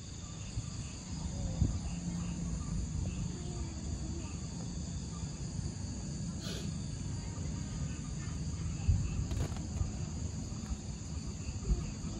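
Steady chorus of insects with a constant high shrill, over a low rumbling background.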